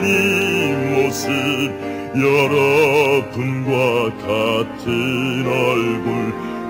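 Musical theatre singing in Korean with orchestral accompaniment: held, wavering sung notes with vibrato over sustained chords.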